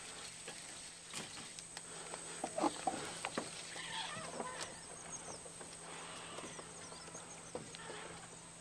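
Birds calling over scattered light clicks and small splashes, with a faint steady high-pitched whine underneath.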